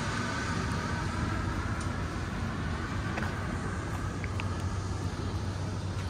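Steady city street ambience with road traffic running by, a constant low hum under an even wash of noise.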